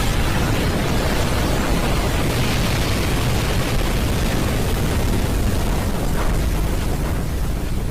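A loud, continuous rumble, deep in the low end with a hiss over it, easing slightly near the end.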